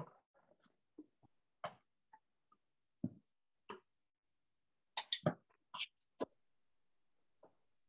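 Scattered short knocks, clicks and rustles, about a dozen, spread irregularly with silence between them, the loudest a cluster about five seconds in.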